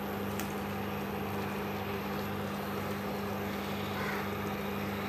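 Induction cooktop running with a steady low electrical hum and cooling-fan noise, with a light click about half a second in and faint soft sounds of steamed vegetables sliding from a steel plate into the pan later on.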